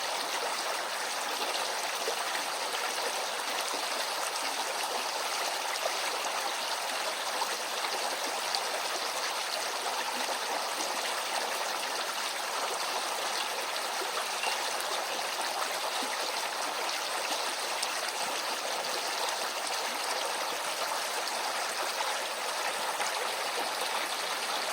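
Small shallow stream running over stones, a steady even babble of flowing water.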